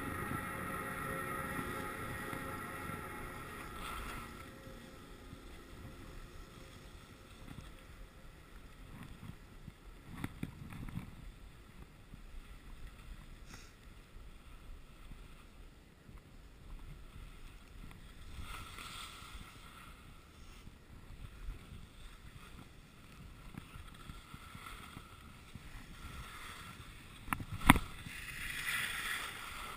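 Skis sliding over packed snow, an uneven swishing hiss that swells and fades, with wind on the microphone. For the first few seconds the chairlift terminal machinery hums with several steady tones. Near the end there is one sharp knock, the loudest sound.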